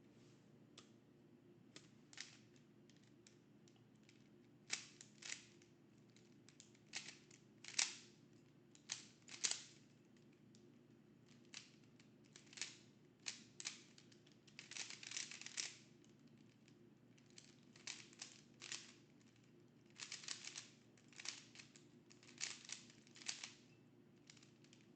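A Rubik's cube being turned fast during a speedsolve: quick clicking and clacking of the layers in irregular bursts with short pauses, and a longer rattling run of turns midway.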